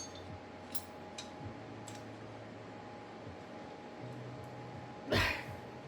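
A few light clicks and taps of tools and parts being handled at the wheel hub, over a steady low hum, with one brief louder noise about five seconds in.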